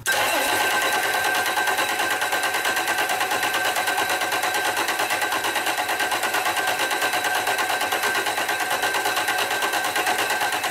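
Electric starter cranking a freshly rebuilt 8.3 L Cummins inline-six diesel, the engine turning over without firing while the injection lines are cracked open to bleed air out of the fuel system. A steady starter whine over rapid, even pulses starts abruptly.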